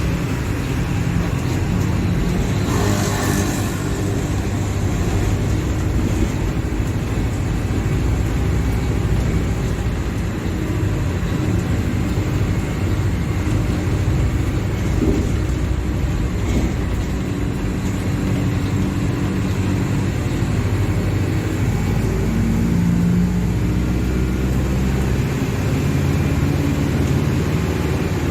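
Mercedes-Benz OF-1721 Bluetec 5 bus's four-cylinder diesel engine running steadily, its pitch shifting a little. A short hiss comes about three seconds in.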